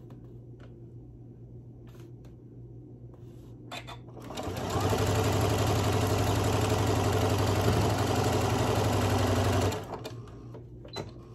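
Janome M7 sewing machine stitching a seam through pieced quilt fabric: after a few quiet seconds it starts about four seconds in, runs steadily at speed for about five seconds, then stops abruptly.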